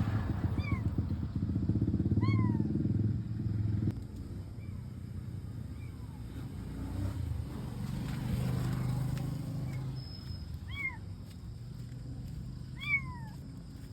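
An abandoned kitten meowing repeatedly in short, high, falling cries, loudest near the end. A vehicle engine rumbles under the first few seconds and drops away about four seconds in.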